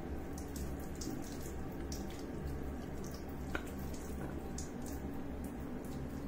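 A thin stream of water trickling from a plastic dipper onto a baby monkey's head, with scattered drips and splashes falling below. One sharp click about halfway through.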